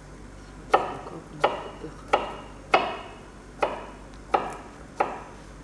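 Kitchen knife chopping on a wooden cutting board: seven sharp knocks, one roughly every two-thirds of a second.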